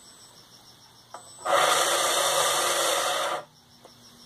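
RC speed boat's drive motor spinning its propeller out of the water in a short whirring run, starting suddenly about a second and a half in and cutting off about two seconds later.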